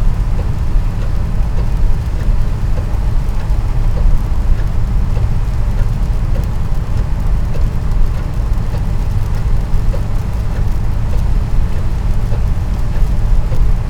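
Wartburg 353 driving at motorway speed: a steady low drone from its three-cylinder two-stroke engine mixed with road noise.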